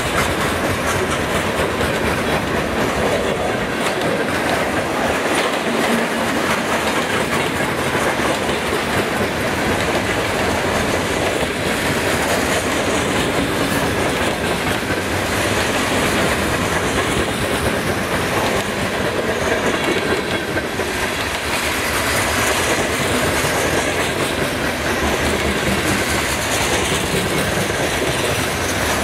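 A freight train's boxcars and gondola rolling past close by: a steady rumble of steel wheels on rail, thick with rapid clicks as the wheels pass over the rail joints.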